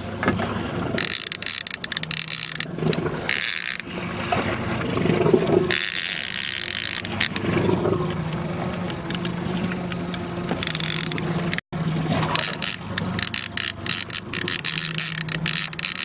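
A fishing boat's motor running with a low steady hum, under a rushing noise that comes and goes.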